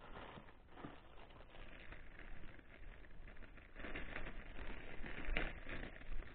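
Plastic bag rustling and crinkling as it is handled and opened, in irregular bursts that grow louder in the second half.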